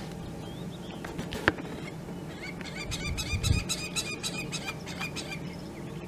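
A bird calling a fast run of repeated notes, about five a second, for nearly three seconds from the middle of the stretch, over a steady low hum. A sharp click comes about one and a half seconds in.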